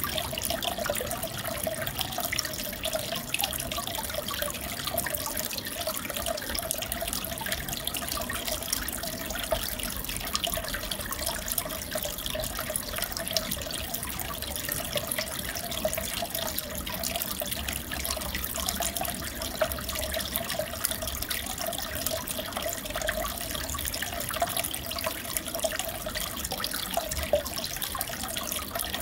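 Steady sound of running, splashing aquarium water with a continuous fine crackle and no break.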